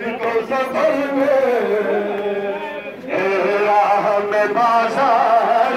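Crowd of male mourners chanting a noha, a Shia mourning lament, the melody rising and falling without a break.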